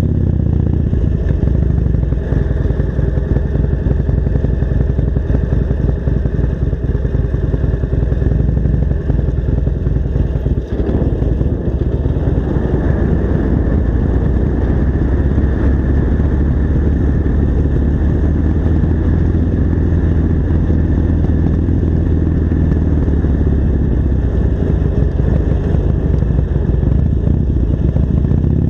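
Harley-Davidson Sportster's V-twin engine running steadily while being ridden, with a brief dip in sound about ten seconds in.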